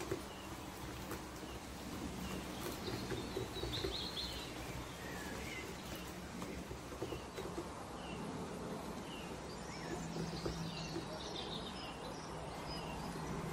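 Birds chirping now and then in the background while a wire whisk stirs a thick batter in a glass bowl, over a faint steady low hum.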